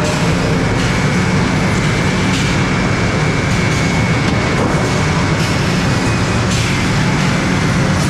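Sawmill machinery running steadily and loudly: conveyors and processing equipment making a low rumble with a thin steady high whine, and a few short clatters now and then.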